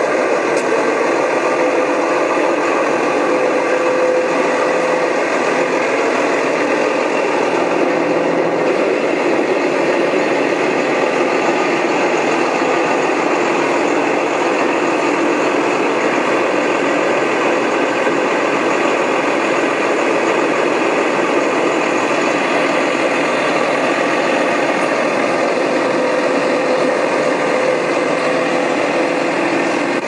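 An engine running steadily at a constant speed, with no change in level.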